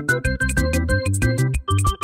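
Upbeat, playful background music: quick synthesizer notes over a fast, even beat.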